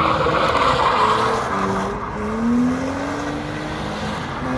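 BMW drift car sliding sideways. Its engine revs up and down as the tyres squeal and scrub across the asphalt.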